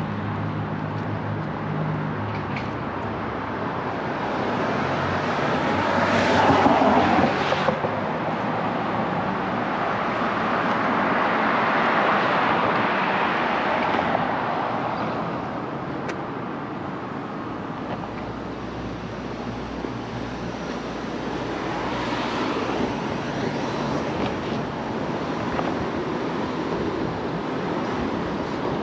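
Road traffic passing on a busy city street: a continuous rush of cars with louder swells as vehicles go by, the loudest about six to seven seconds in and another around twelve seconds. A low engine hum sits under it at the start.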